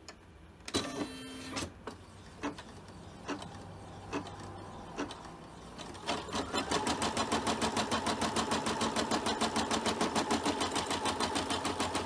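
Single-needle home embroidery machine starting a stitch-out. First come a few separate, slow needle clicks about a second apart. Then, from about six seconds in, it runs at full speed with a rapid, even chatter of stitches.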